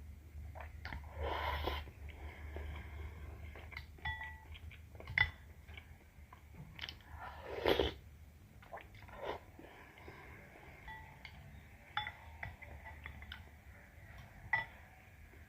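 A person eating soupy noodles close to the microphone: chewing with small wet clicks, two louder slurps, and a few light clinks of a utensil against the bowl.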